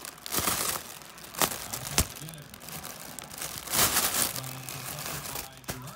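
Crinkle tunnel's crinkly lining rustling in several short bursts as a cat swats and thrashes inside it, loudest about four seconds in, with a sharp tap about two seconds in.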